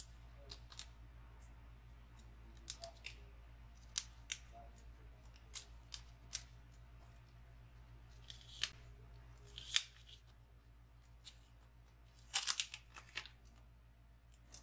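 Fingernails picking and scratching at the plastic wrap and sticker sealing an iPhone 11 box: scattered, irregular sharp clicks and crinkly scratches, the busiest flurry near the end, over a faint steady hum.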